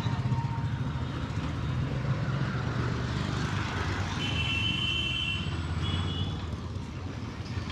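Motorcycle riding in traffic: a steady low engine and road rumble picked up by a lapel mic inside the helmet. About halfway through, a high, steady vehicle horn sounds for about a second, then once more briefly.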